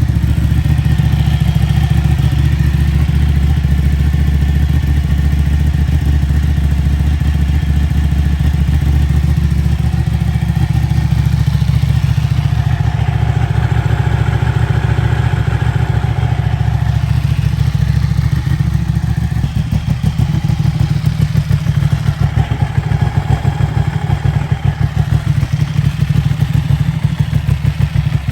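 Ducati Panigale 1199S's V-twin running at idle through a Termignoni exhaust: a steady, deep, bassy rumble that pulses more unevenly from about twenty seconds in.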